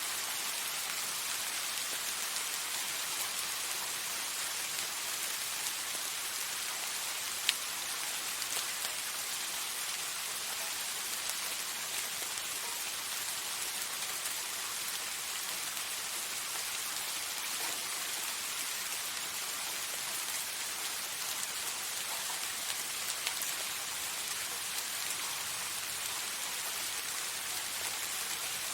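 Steady soft rain falling, an even hiss of drops with scattered sharper drop ticks, one louder tick about seven seconds in.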